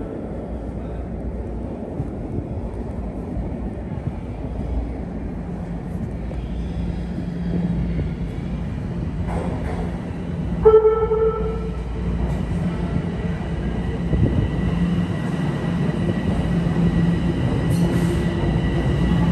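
Subway train sounds in an underground station: a steady low rumble and hum that grows louder toward the end. About ten seconds in there is a short horn-like tone.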